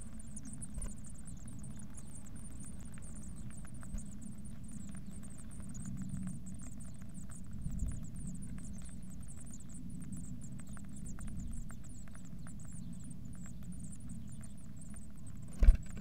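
Adult blue tit scratching and rustling in the nest material inside a wooden nest box, small clicks over a steady low rumble. Just before the end, a loud knock as the bird takes off out of the box.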